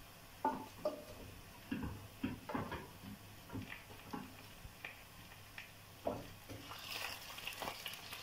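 Pressure-cooked chicken pieces being lifted from a pot and dropped into a frying pan of hot oil and onions, a run of soft, irregular knocks and plops. About seven seconds in a spatula starts stirring and the oil begins to sizzle.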